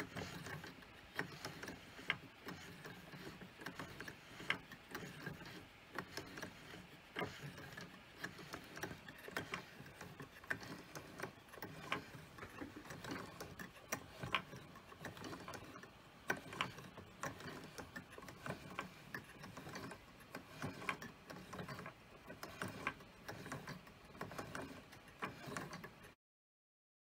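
Gears and linkages of a small mechanical automaton running, a continuous irregular patter of small clicks and knocks that stops abruptly near the end.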